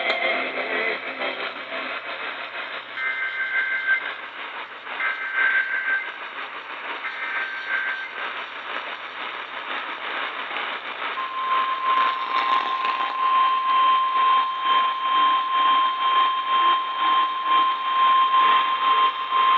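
Emergency Alert System tornado-warning alert heard over a weak, static-filled AM radio signal. Three short two-pitch data bursts (the SAME header) come about two seconds apart, and about eleven seconds in a steady single-pitch alert tone starts and holds on.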